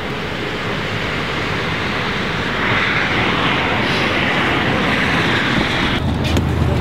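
Steady aircraft engine noise that swells about three seconds in. About six seconds in the sound changes to a lower hum with a few sharp clicks.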